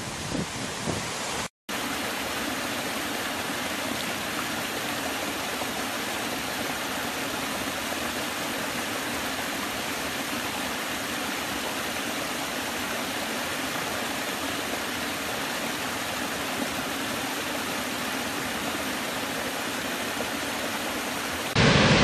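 A small woodland stream splashing steadily over low rocky cascades. It starts after a short gap about one and a half seconds in. Just before the end it cuts to the much louder rush of a large waterfall.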